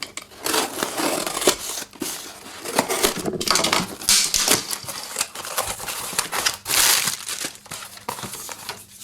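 A mailed package being torn open by hand, its wrapping crumpling, crinkling and tearing in irregular bursts.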